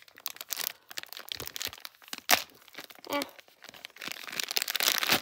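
Clear plastic packaging bag crinkling and tearing as hands handle and open it, with one sharp crack about two seconds in.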